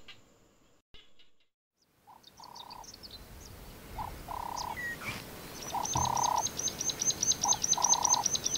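Wild animal calls in the bush: a two-note call, a short note then a longer held one, repeats about every second and a half, and a fast, high ticking series of about six a second joins just past halfway. The first two seconds are near silent.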